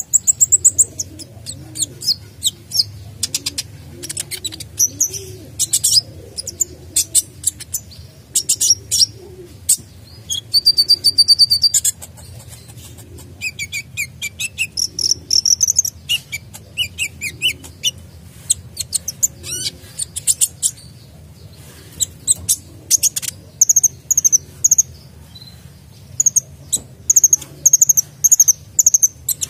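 Caged male sunbird singing energetically: a varied run of sharp high chirps, fast buzzy trills and quickly repeated whistled notes, broken by short pauses. The song is full of varied fill phrases ('full isian').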